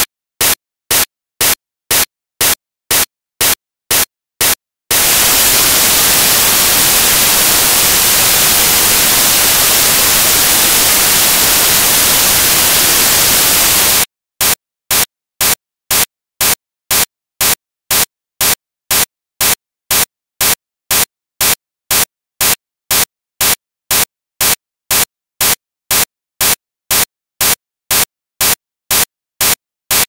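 Short bursts of static about twice a second with dead silence between them, giving way to loud, even white-noise hiss from about five to fourteen seconds in, then bursts again. It is an artificial, glitched sound track, not a natural sound.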